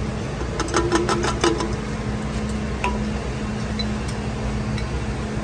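A steady low machine hum, with a quick run of light metallic clinks about a second in and one more near three seconds, as automobile AC system flush cleanser is poured from its can into a metal flushing canister.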